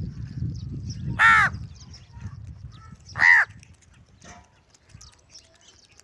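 House crow cawing twice, two loud harsh caws about two seconds apart.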